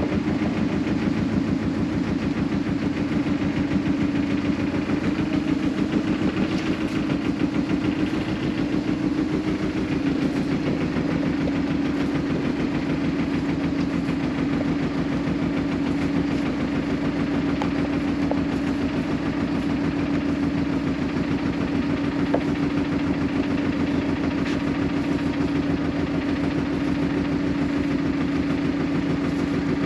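Small fishing boat's engine running steadily under way, a constant hum with a fast even beat.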